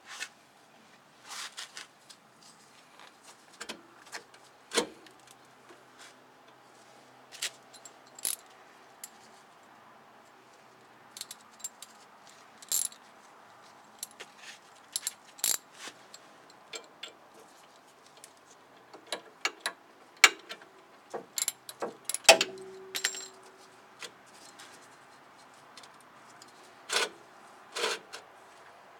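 Irregular light metallic clinks and clicks of metal tools and parts being handled. One louder clink about two-thirds of the way in rings briefly.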